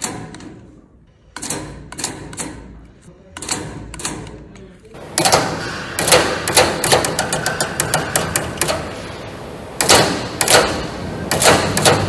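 Heating-system valve knocking and hammering with water flowing through it the wrong way, against the arrow on its body. Scattered single knocks at first, then about five seconds in a fast rattle of knocks with a few louder bangs.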